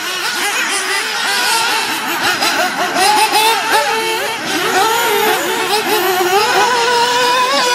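Several nitro RC buggy engines (small two-stroke glow engines) racing, their high-pitched whines rising and falling with the throttle and overlapping. Toward the end one or two engines hold a steadier pitch.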